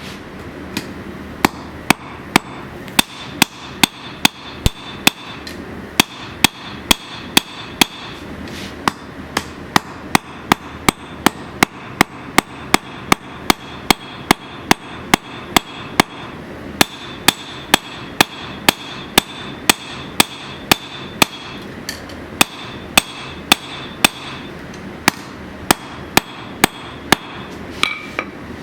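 Hand hammer forging hot 15n20 steel on an anvil: sharp blows at about two a second, in runs broken by short pauses, with a high ringing tone over the runs of blows.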